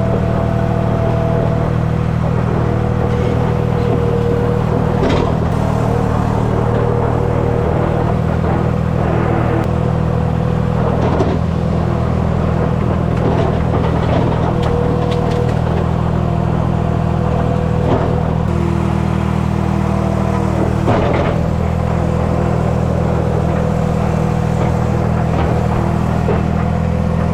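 New Holland LX865 skid steer's engine running steadily under work, with higher steady tones that come and go over it and a few sharp knocks.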